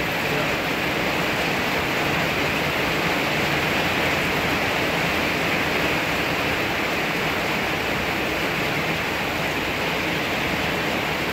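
Rain falling steadily in a thunderstorm: a dense, even hiss that stays the same throughout.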